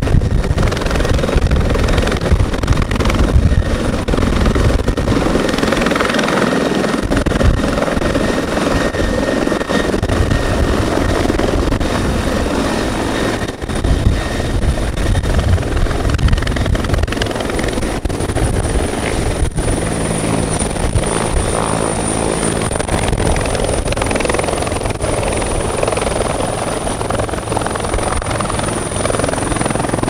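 Fire-department helicopter flying low and coming in to land: a continuous, loud rotor and turbine noise. About two-thirds of the way through, a steady high whine and a low hum join in as it comes closer.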